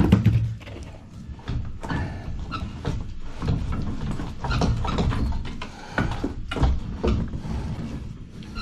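A man straining and grunting as he works a heavy cast iron sanitary tee loose from a soil stack, with irregular knocks and scrapes of the iron.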